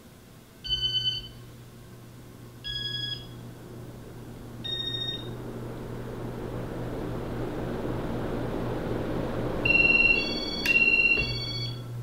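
Casablanca Ventura II ceiling fan with its Inteli•Touch control beeping: short electronic tones at several pitches, three spaced about two seconds apart, then two louder ones near the end. Under the beeps a low motor hum starts about a second in, and the rush of air from the spinning blades builds through the middle as the fan speeds up.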